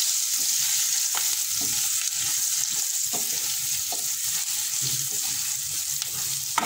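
Green chillies and spices sizzling in hot oil in a metal kadai, with a steady hiss, while a wooden spatula stirs them and scrapes against the pan now and then.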